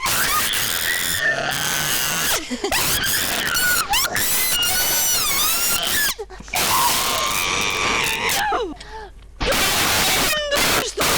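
A person screaming and squealing in loud, high, wavering shrieks and strained wordless yells. The shrieks break off briefly about six seconds in and again near nine seconds.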